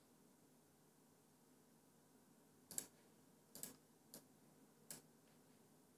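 Computer mouse clicks: four faint, sharp clicks in the second half, under a second apart, over near silence.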